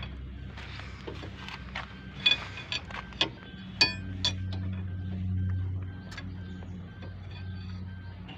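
A flat steel bar knocking and prying against a car's front brake disc and hub, giving scattered sharp metallic clinks, most of them in the first half. A low hum swells up in the middle.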